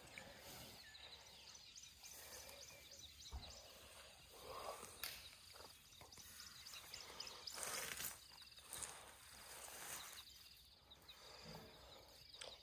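Quiet outdoor ambience with faint rustling and tearing of grass as an African elephant calf grazes, a few soft crunches standing out in the middle.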